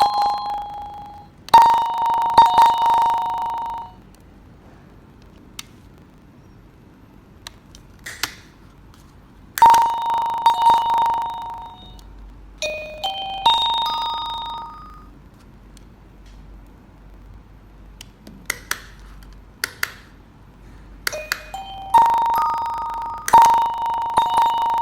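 Battery-free wireless doorbell receiver sounding its electronic chime several times: short ding-dong tones and a longer tune of several stepping notes. Short sharp clicks fall between the chimes.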